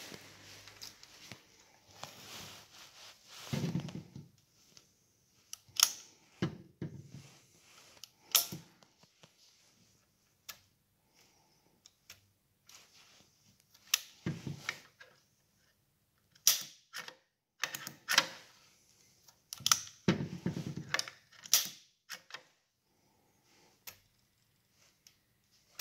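Plastic choke lever on a Husqvarna 445 II chainsaw being flipped by hand, snapping into its positions with sharp clicks, some of them in quick runs. Duller knocks come from the saw's plastic housing being handled.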